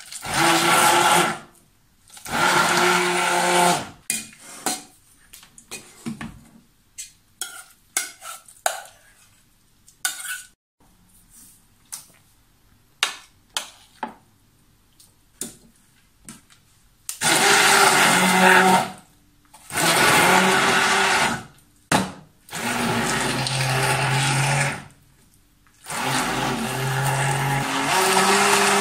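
Electric immersion hand blender run in short bursts, mashing raw chicken breast in an enamel pot: two bursts at the start, then four more in the second half. In between, a long pause with scattered light clicks and knocks.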